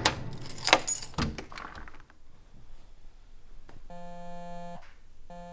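A bunch of keys jangling and a key working in a door's cylinder lock, a few sharp clicks in the first two seconds. Then a mobile phone's electronic ringtone sounds twice, a steady pitched tone about four seconds in and again near the end.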